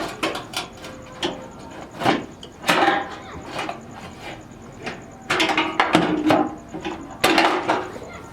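Irregular clicks, knocks and clatter of car body parts being handled.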